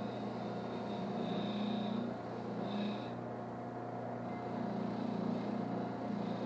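A small electric motor running steadily with a constant whine and a low hum that swells and dips, fitting a power wire wheel being worked against rusty wrenches.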